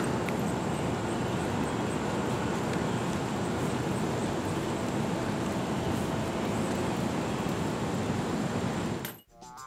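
Steady rushing outdoor noise that cuts off abruptly near the end.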